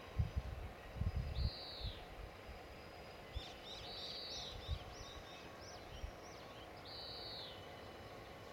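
Small birds calling: a couple of drawn-out falling calls and a run of quick chirps in the middle, over a steady low background hum, with a few low thumps in the first two seconds.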